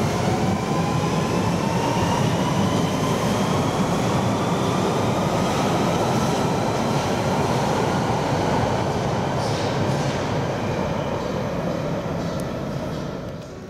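A 1992 stock London Underground Central line train accelerating away from the platform: a rising electric traction-motor whine that levels off after a few seconds, over loud wheel and rail rumble. The noise fades near the end as the last car leaves.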